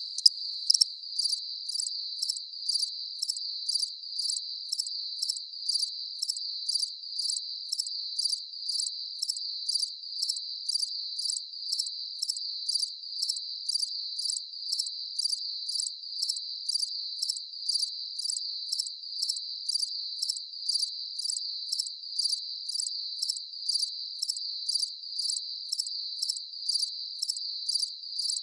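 A chorus of crickets chirping: a steady high trill runs throughout, with a sharper chirp pulsing about twice a second over it.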